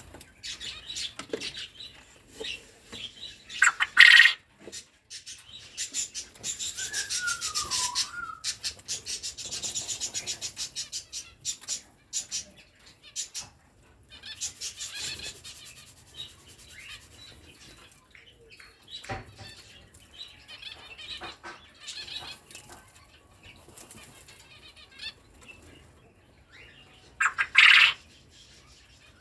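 Aviary quail and finches: flurries of rapid wing flutter, scattered chirps, and two short loud bird calls, one about four seconds in and one near the end.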